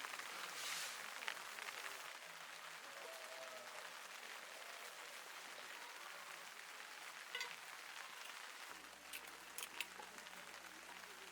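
Steady rain, an even hiss of falling drops, with a few sharp ticks in the last few seconds.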